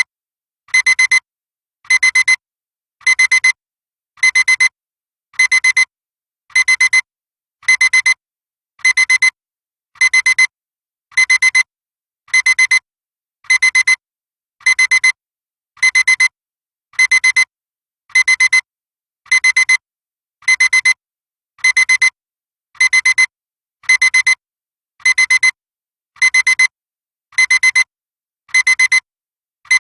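Digital alarm clock beeping: a high-pitched electronic beep in quick runs of short beeps, repeating about once a second without a break.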